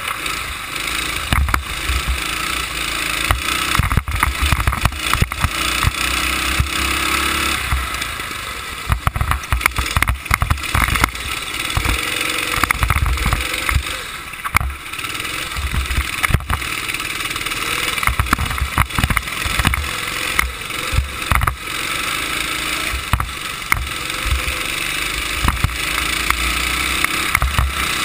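Go-kart engine running at racing speed, heard from the driver's seat, its pitch repeatedly rising and falling as the throttle opens and closes through the corners. Wind buffets the microphone in gusts, with frequent sharp knocks from the chassis.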